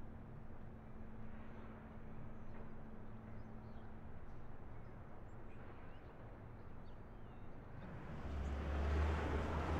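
Quiet outdoor ambience with faint bird chirps and a low steady hum, then a motor vehicle's rumble swelling up about eight seconds in and staying loud.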